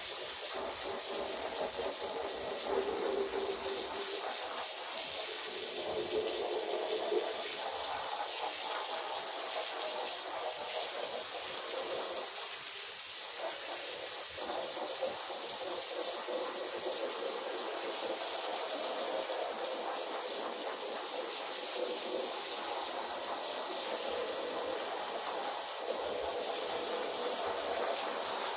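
Rotary floor polisher scrubbing a wet carpet with its brush: a steady wet hissing and swishing.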